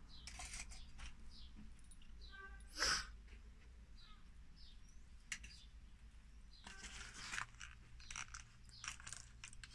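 Short spritzes from a hand trigger spray bottle, the loudest about three seconds in and several more in the second half, with small birds chirping faintly in the background.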